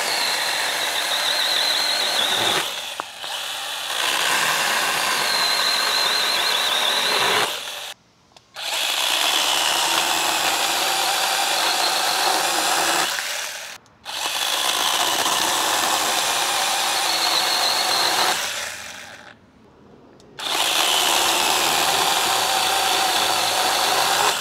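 Letton cordless brushless mini chainsaw with an 8-inch bar cutting through a tree branch, its motor and chain running with a high whine. It stops briefly three times and starts again.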